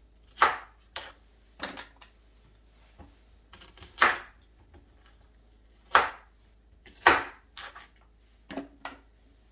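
Kitchen knife cutting an onion into chunks on a wooden cutting board: about ten sharp knocks of the blade on the board, irregularly spaced.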